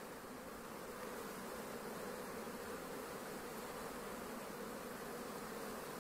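Many honeybees buzzing at the entrances of a row of hives, a steady, even hum of heavy flight traffic as the colonies work a white-acacia nectar flow.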